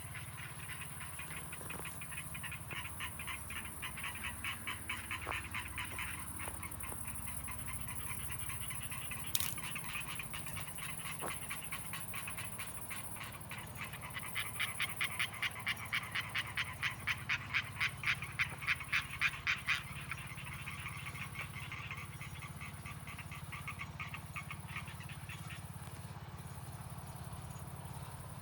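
Frogs calling in a chorus of rapid pulsed croaks. Past the middle it swells into loud, rhythmic pulses about two a second for several seconds, over a steady high hiss and a low hum.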